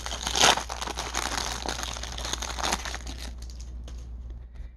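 Baseball card pack wrapper crinkling as it is opened and handled, with a few sharper crackles in the first three seconds, then fading to faint rustling of the cards.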